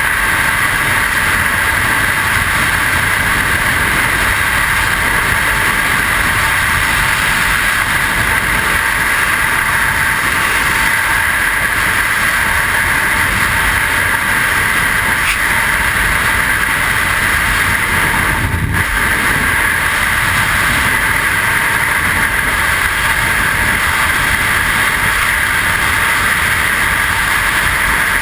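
Freefall wind rushing loudly and steadily over a skydiver's helmet-mounted camera, one unbroken hiss that dips briefly once about two-thirds of the way through.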